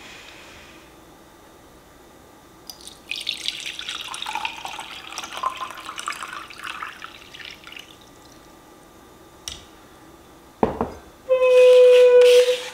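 Water poured from a glass measuring jug into a metal 3D-printed heat-exchanger cooking pot, splashing for about five seconds. Near the end comes a thump, then a loud, steady tone lasting about a second.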